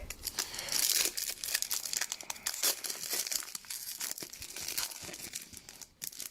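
Plastic wrapper of a hockey card pack crinkling and tearing as the pack is opened: a dense run of sharp crackles, busiest about a second in and thinning out toward the end.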